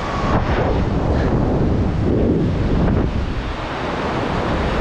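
Wind buffeting a camera microphone: a steady, deep rushing noise.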